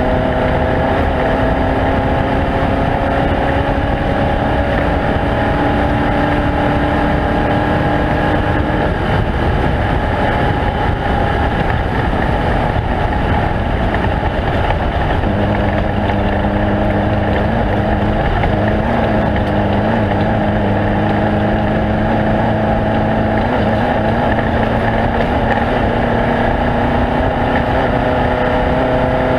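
Off-road race vehicle's engine running continuously at speed over a loud steady rush of noise. Its pitch creeps slowly upward, drops to a lower note about halfway through, then climbs again.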